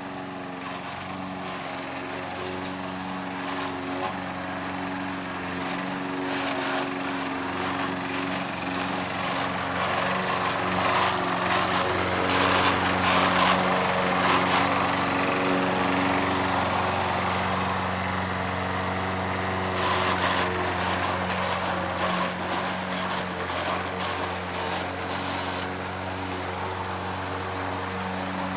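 Toro Recycler walk-behind mower running steadily under load while mowing grass, with grinding from its worn self-propel transmission mixed in. The sound grows louder for a while around the middle.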